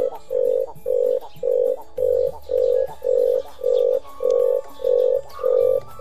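Caged red collared dove cooing: a long run of evenly spaced, low 'kuruk' notes, a little under two a second, each short and steady in pitch.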